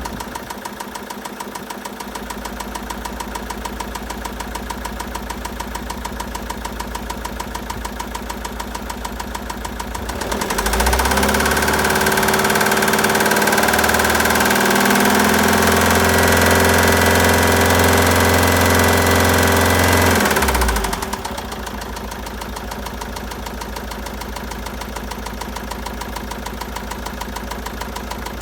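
Citroën Jumper II's 2.2-litre four-cylinder diesel (4HH) idling with a fast, even knock, then revved at about ten seconds in and held at higher revs for about ten seconds before dropping back to idle. The knock is the sign of the engine's bearing damage.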